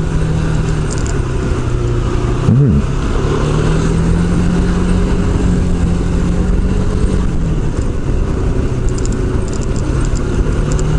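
Yamaha Majesty S scooter's single-cylinder engine running steadily while riding, with road and wind noise over it.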